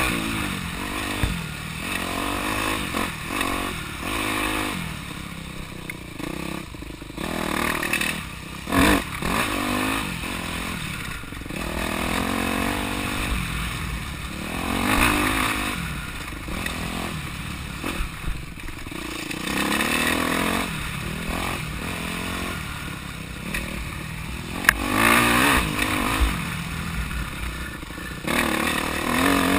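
Dirt bike engine ridden off-road, revving up and dropping back again and again as the throttle is worked, with occasional knocks and rattles.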